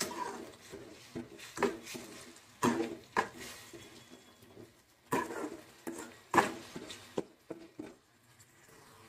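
A steel spoon scraping and knocking against a metal pan in uneven strokes, as a thick tomato and green chilli chutney is stirred while it fries.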